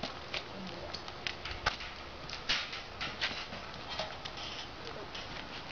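Irregular light knocks and clicks from a harnessed Haflinger mare and her hitched cart: her hooves shift on asphalt and the cart and harness rattle as it is climbed into.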